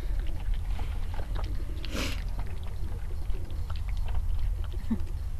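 A small dog eating porridge from a bowl: quick, irregular wet chewing and smacking, with a brief rustle about two seconds in.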